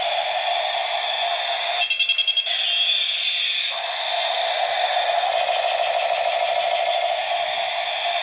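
Electronic war-helicopter sound effects played through a toy's small, tinny speaker: a steady droning effect with rising and falling whistle tones that cross each other, broken about two seconds in by a short rapid pulsing rattle.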